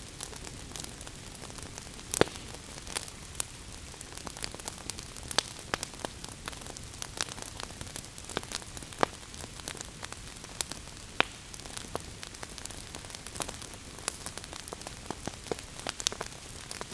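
Wood fire burning in a fireplace: logs crackling and popping at irregular intervals over a steady hiss, with one sharp pop a couple of seconds in.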